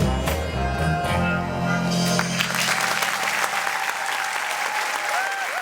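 The last notes of a recorded song, with brass, end about two seconds in. Audience applause follows, with a voice or two cheering over it.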